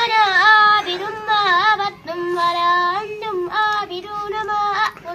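A young girl reciting the Quran aloud in a melodic chant, holding long notes with wavering ornaments, in several phrases with short breaths between them.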